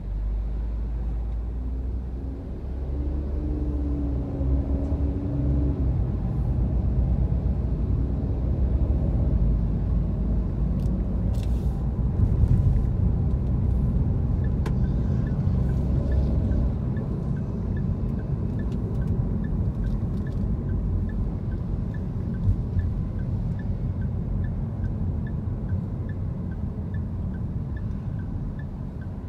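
A car's engine and tyre rumble heard from inside the cabin as it pulls away from a stop and drives on, a low steady rumble that swells after a couple of seconds. From about halfway on, a faint regular ticking sounds about one and a half times a second.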